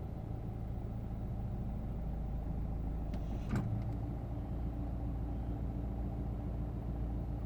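2017 Nissan Juke being started with the push button: a short burst about three and a half seconds in as the engine turns over and catches, then the engine idling steadily under a low hum.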